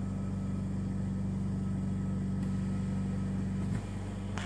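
Invacare Perfecto oxygen concentrator's twin-piston compressor running with a steady mains hum. Near the end a click and a sudden rush of air: the valve switching the sieve beds over.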